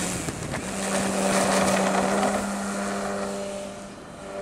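RC Corsair's motor and propeller running at steady full throttle on its take-off run, a constant drone that swells as the plane passes and fades as it pulls away.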